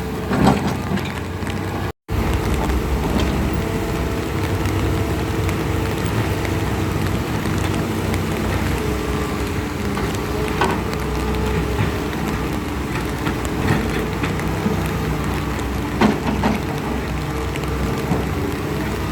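Heavy rain falling steadily, with an engine hum running underneath and a few louder knocks or splashes. The sound cuts out completely for a moment about two seconds in.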